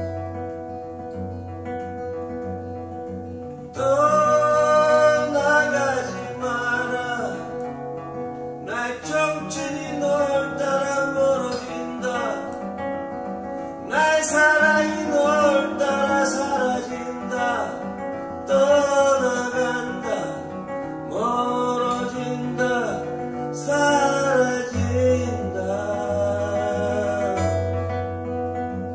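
A man singing a slow song to his own acoustic guitar accompaniment. The guitar plays alone at first, and the voice comes in about four seconds in and carries on in phrases with short breaths between them.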